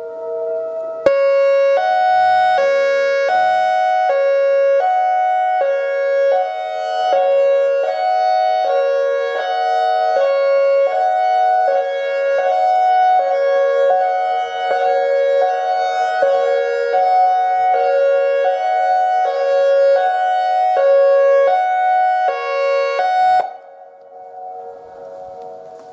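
ACA Alertronic AR-1600 electronic outdoor warning siren sounding a hi-lo signal, two pitches alternating evenly, each held for under a second. It starts about a second in and cuts off sharply near the end. A much fainter steady tone is heard before it starts and after it stops.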